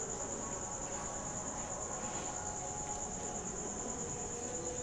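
Crickets trilling steadily in one continuous high-pitched chorus.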